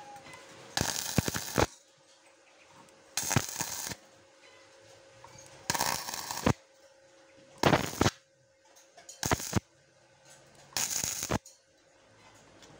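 MIG welding arc on a rusty steel bar, struck in six short bursts of crackling and sputtering, each half a second to a second long, with pauses between them. A faint steady hum sits underneath.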